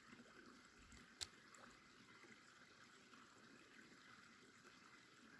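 Near silence with a faint hiss, broken once, about a second in, by a single short, sharp click.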